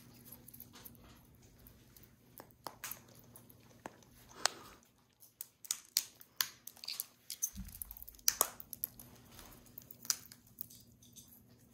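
Pet parrots, a cockatoo and an African grey, cracking pine nut shells in their beaks: irregular sharp cracks and clicks, coming thicker and louder from a few seconds in.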